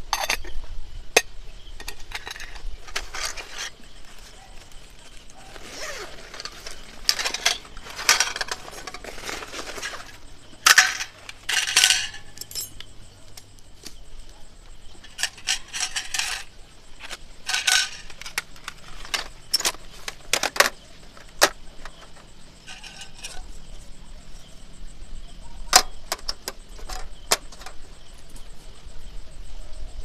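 Small metal items clinking and knocking as they are handled, in irregular clicks with stretches of rustling between.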